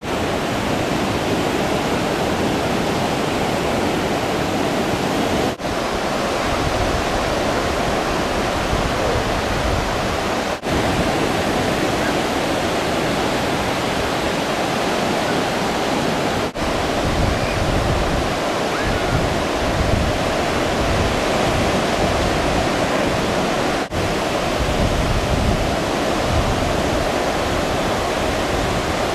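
Steady rushing wash of breaking surf picked up by the camera's own microphone, with a shifting low rumble. It drops out briefly four times where the clips are cut.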